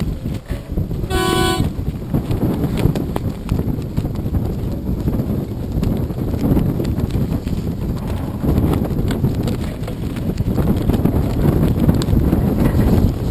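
One short horn blast about a second in, over a steady rumble of wind on the microphone and lapping water.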